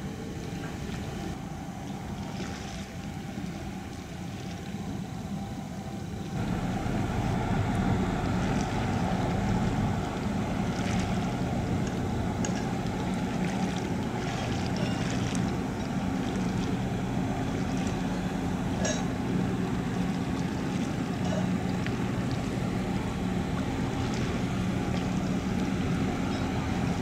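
Tugboat's diesel engines running steadily while underway, a low drone with water wash and wind noise. The sound gets louder about six seconds in.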